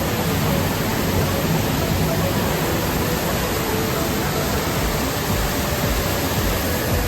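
Steady, loud rush of a waterfall, an even roar of falling water with no breaks.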